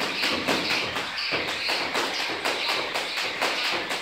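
Jump rope spun for double unders: the rope striking the floor and the feet landing in a fast, even rhythm of about four ticks a second.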